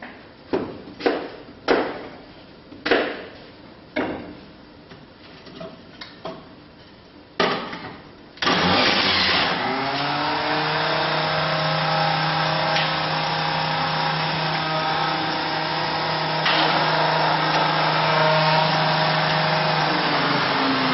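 A series of sharp knocks, then about eight seconds in an electric centrifugal juicer switches on, spins up and runs with a steady hum while juicing green apple. Near the end its pitch drops as it slows down.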